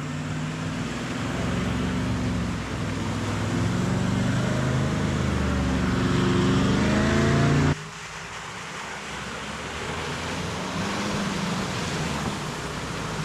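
Four-wheel-drive engines crawling along a dirt track. A Toyota LandCruiser 79 series comes up close and its engine note grows louder and rises, then the sound drops away suddenly about eight seconds in. After that, a second 4WD is heard more quietly as it comes through the puddle behind.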